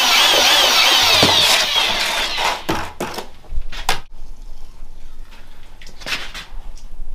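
Mixing drill with a paddle churning runny self-levelling concrete in a plastic bucket, its motor running with a wavering pitch for about the first two seconds and then stopping. A few knocks and clatters follow as the bucket is handled and tipped to pour.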